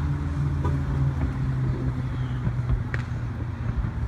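Steady low hum of an idling engine, with a faint pop about three seconds in.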